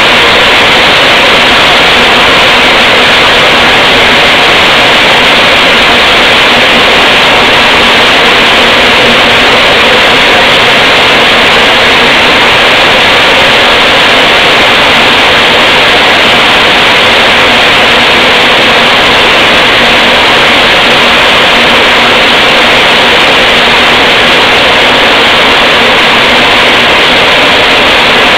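A maize flour milling plant running: roller mills and their electric motors make a steady, loud machine noise that holds even throughout.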